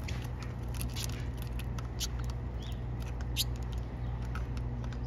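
A feeding flock of pine siskins giving short, high chips and call notes at irregular intervals, with one brief rising note midway, over a low steady hum.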